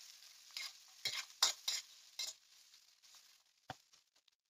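Spatula scraping and stirring sliced onions, garlic, cashews and whole spices frying in oil in a wok: a few quick scrapes over a light sizzle in the first two seconds or so, then quieter, with a single knock near the end.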